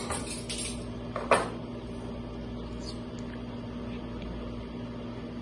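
A few knocks of small objects being picked up and set down on a wooden table, the loudest a single sharp knock about a second and a half in. A steady low hum of room tone runs underneath.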